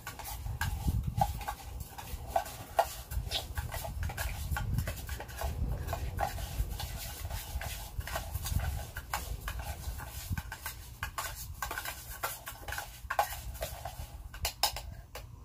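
A spoon stirring and scraping rice toasting in oil in a metal canteen cup: a run of irregular clicks and scrapes against the metal, over a low rumble of wind on the microphone.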